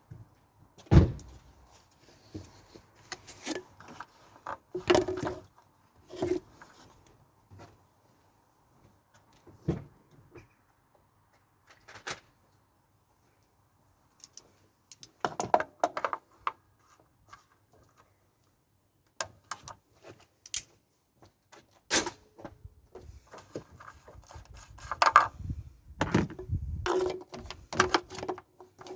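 Scattered clicks, knocks and thunks of hands handling parts and tools, with a few short rattling stretches and quiet gaps between them.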